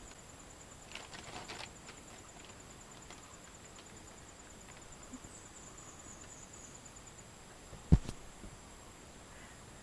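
Faint outdoor ambience with a steady high insect trill, a few faint clicks about a second in, and one sharp loud thump about eight seconds in.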